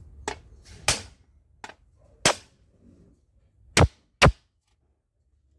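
Six irregular hammer blows driving a new bearing into its seat in a washing machine's base, the last two loudest; it goes fully home.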